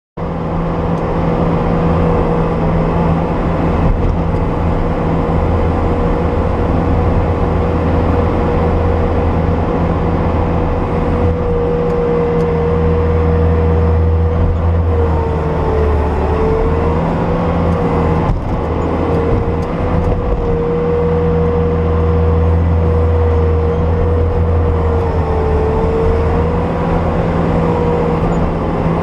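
Bobcat S250 skid steer's diesel engine running steadily under work, with a high whine that dips in pitch briefly twice, about halfway through and again near the end.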